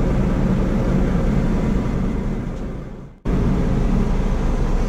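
Steady low background hum with a few droning low tones, fading and breaking off for a moment about three seconds in, then coming back at the same level.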